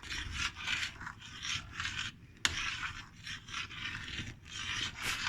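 A spoon scraping round the bottom of a pot as thickening pumpkin kissel is stirred while it boils, in repeated strokes about two a second. There is one sharp click about two and a half seconds in.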